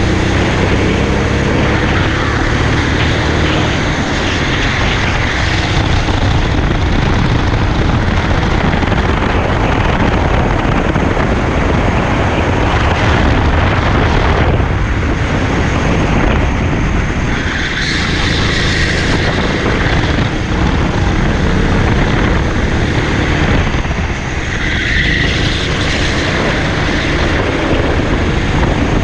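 Small kart engine running hard at racing speed, heard close up from on board the kart, steady throughout with small dips as the driver lifts.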